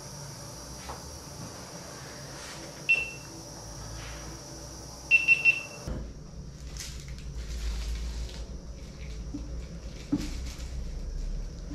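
A high electronic beep, then three quick beeps in a row a couple of seconds later. After that a low hum with faint scratching of a blade on a wooden box lid.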